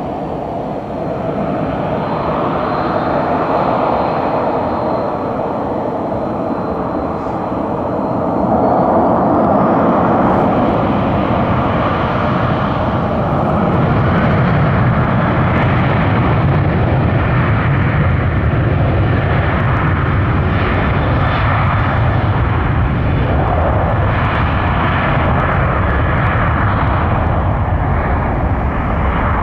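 Boeing 737-800's CFM56-7B turbofan jet engines running at high power, a steady loud roar that grows louder about eight seconds in.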